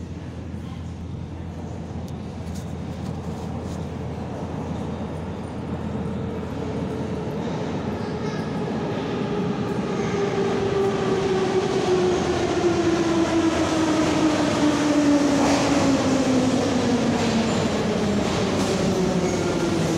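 Metro train approaching and pulling into the station: a rumble that grows louder over the first dozen seconds, with a motor whine in the second half that falls steadily in pitch as the train slows.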